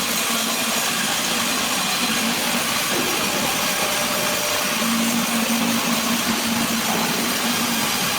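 Sawmill machinery running steadily: a constant hissing mechanical noise with a low hum that fades in and out.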